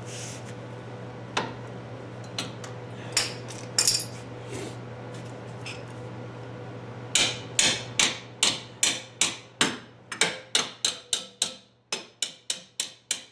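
A hammer striking metal: a few scattered knocks, then from about seven seconds in a fast, even run of strikes, about three a second. A steady low hum underneath stops near the end.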